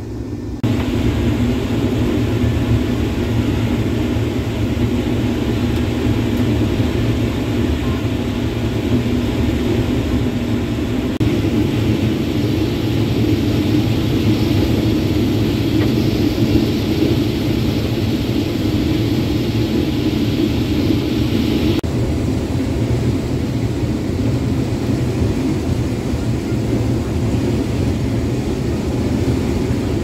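Case IH 2388 combine running steadily under load while harvesting corn, heard inside the cab as a continuous engine and threshing drone. A brighter rushing layer joins about a third of the way through and drops away about two-thirds of the way through.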